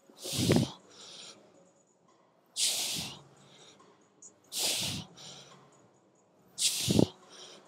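A lifter's forceful, hissing breaths, one with each rep of a seated Smith machine shoulder press warm-up set: four in a row, about two seconds apart.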